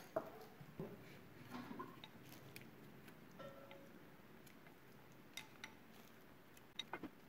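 Faint, scattered clicks and light taps from kitchen handling during food preparation, with a few sharper clicks close together near the end.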